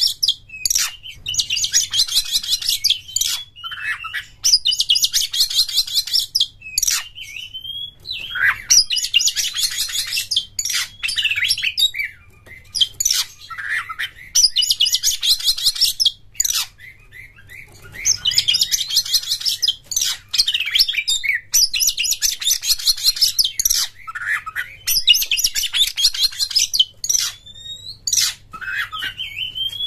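Oriental magpie-robin (kacer) singing in the fast, buzzy chattering 'konslet' style. It gives high, rapid trilled phrases of a second or two each, again and again with short gaps, mixed with lower whistled notes.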